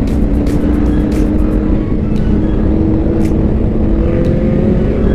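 Kawasaki ZX-10R's inline-four engine running at a steady cruise, its pitch creeping slowly upward, over heavy rushing noise.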